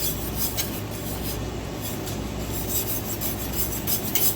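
Spoon stirring and scraping the bottom of a pot of boiling sugar syrup, a series of irregular scrapes over a steady background noise.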